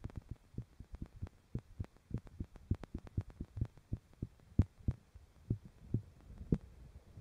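Irregular low clicks and knocks, a few each second and uneven in strength, heard underwater through a GoPro's waterproof housing in a creek over a faint low hum.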